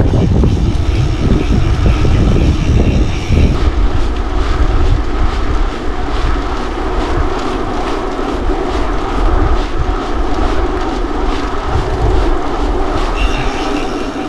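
Wind buffeting a mountain biker's action-camera microphone while riding, over the rush of tyres rolling and the bike rattling on rough ground. The low wind rumble is heaviest for the first few seconds, then eases.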